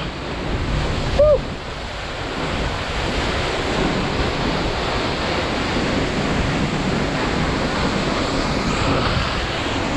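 Steady rush of a tall waterfall crashing onto rocks, with wind buffeting the microphone; a brief cry about a second in.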